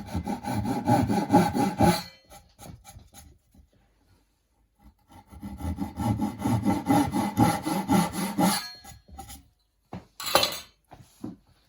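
Small hand saw cutting down a marked line into the wooden edge of a door for a hinge recess, in quick back-and-forth strokes. There are two bouts of sawing with a pause of about three seconds between them, then one brief sharp knock near the end.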